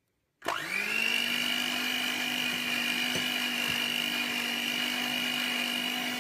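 Electric hand mixer switched on about half a second in, its motor spinning up quickly to a steady whine as the beaters whip cream cheese.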